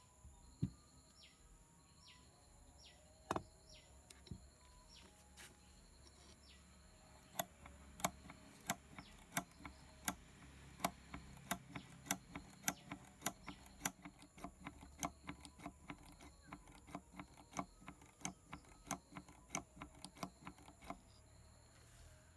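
Pump oil can's thumb lever clicking, sharply and evenly about two to three times a second, as oil is squirted into a hydraulic bottle jack's fill port. Faint bird chirps and a few single clicks come in the first few seconds.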